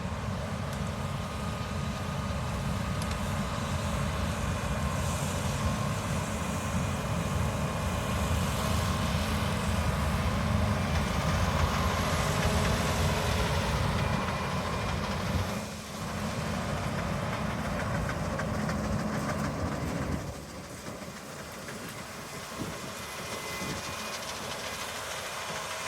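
Heavy harvest machinery running: a steady engine with mechanical clatter. The sound drops abruptly in level about 16 seconds in and again about 20 seconds in.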